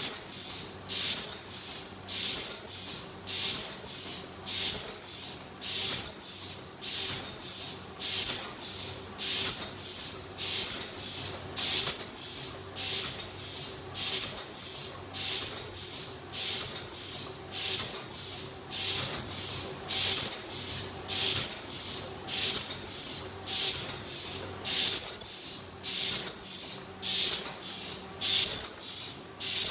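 Paper bowl forming machine running, giving a hissing burst about once a second, in step with its rate of 50 to 60 bowls a minute, over a steady mechanical hum.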